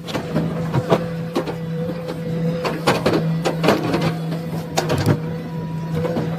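A steady low machine hum with irregular knocks and clicks over it, about a dozen in all.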